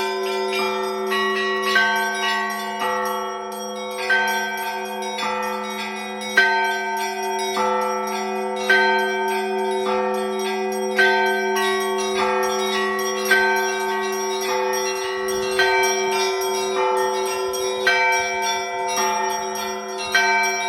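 Russian Orthodox church bells rung by hand from the belfry (zvon). Small bells strike a quick repeating pattern over the steady ringing of the larger bells, with a heavier accented strike about every two seconds.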